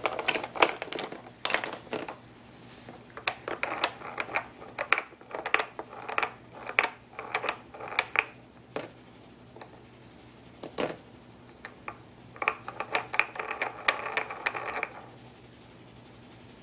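Plastic spinning-ball toy on a baby walker's tray, clicking and rattling as a baby spins it by hand. The clicks come in several rapid bursts with short pauses between, and a lone louder click partway through.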